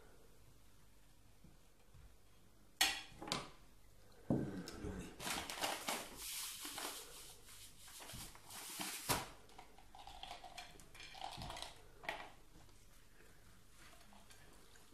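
Tableware handling: a table knife clinking and scraping on a plate, then a paper bag of sugar rustling as sugar is shaken out over a pancake. Two sharp clicks come about three seconds in, the rustling runs from about four to nine seconds, and lighter handling and a last click follow.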